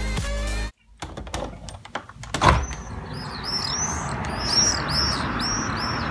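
Birds chirping, a quick run of high arched chirps, over the steady hum of city traffic. Just before, music cuts off under a second in and a few clicks and a knock are heard.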